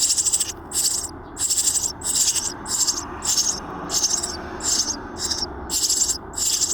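Eurasian tree sparrow nestlings in a nest box begging: a high, hissy chorus of calls in repeated pulses, about one and a half to two a second.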